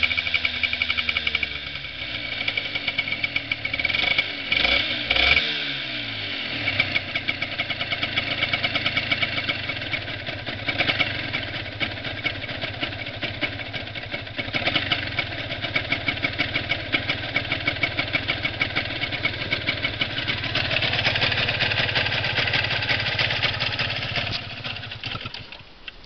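Honda NSR125 two-stroke single-cylinder engine running, blipped up and down a couple of times about four to six seconds in, then settling into a steady run.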